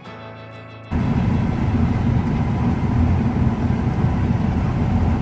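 Background music ends abruptly about a second in. A combine harvester's engine and machinery then run loudly and steadily, a dense low-pitched drone.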